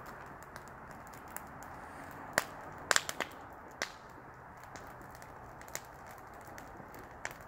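Wood campfire crackling, with scattered sharp pops of burning wood over a steady rush of flame; the loudest pops come in a quick cluster about two and a half to four seconds in.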